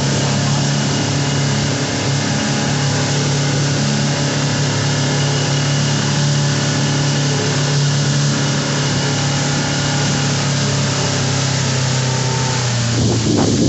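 Boat outboard motor running steadily at cruising speed, a loud, even hum over the rush of water from the wake. Near the end the hum is covered by low, irregular gusts of wind on the microphone.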